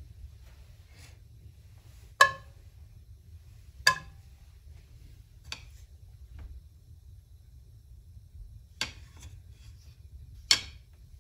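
Sharp knocks on a ceramic-coated frying pan as pats of butter go in: five clicks spaced irregularly, the first two ringing briefly, over a low steady hum.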